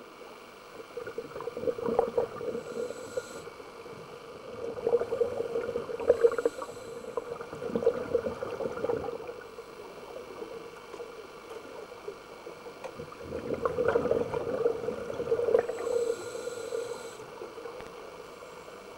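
Scuba exhalation bubbles gurgling from a diver's regulator, heard underwater, in three bubbly bursts a few seconds apart.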